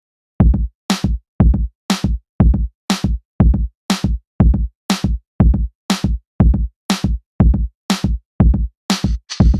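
Background electronic music: a drum-machine beat starts about half a second in, with kick-drum thumps and sharp snare-like hits alternating at about two beats a second.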